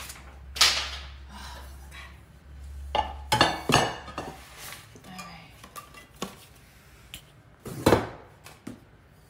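New metal pots, pans and lids clanking and clinking as they are handled and set down on a stone countertop: a string of separate knocks, the loudest about half a second in and near the end.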